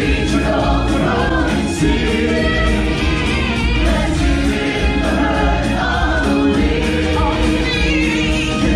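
Stage-show music: a choir of voices singing together over full instrumental backing.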